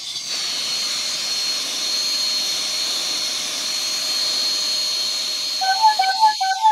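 Handheld hair dryer blowing steadily with a thin, high fan whine; the whine falls away as it is switched off at the end. A few quick, short pitched notes sound over it in the last second.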